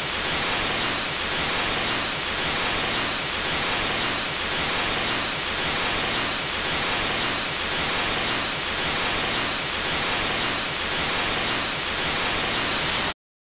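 Television static: a steady hiss of white noise that swells slightly about once a second and cuts off suddenly near the end.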